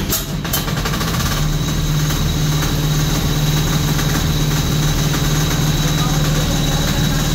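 Small engine of a portable fire pump starting. A few sharp strokes right at the start give way, about a second and a half in, to the engine running at a steady speed.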